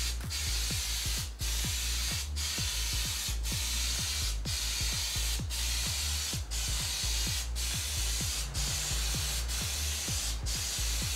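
Aerosol spray can of primer-surfacer spraying a coat onto a metal part: a steady hiss from the nozzle, cut by short breaks about once a second as the paint goes on in repeated passes.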